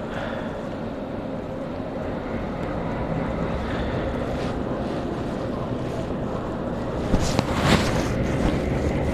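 Uttaranchal Express passenger train rolling, heard from on board: a steady rumble and rush of the wheels on the track, with a few louder clanks about seven to eight seconds in.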